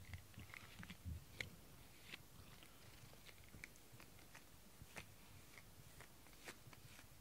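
A cat biting and chewing on a pink rubber grooming brush: faint, irregular little clicks and crunches, about one or two a second.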